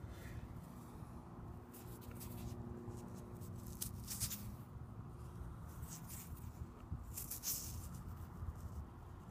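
Fingers crumbling damp soil and rubbing clinging dirt off a small coin, heard as scratchy rustles in several short bursts over a low rumble of handling noise.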